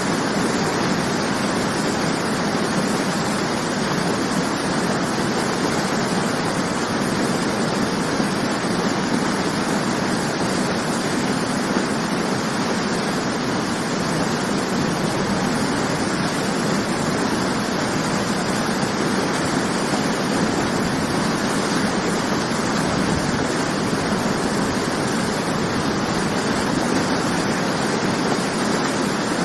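Waterfall: water falling and splashing in a steady, continuous rush.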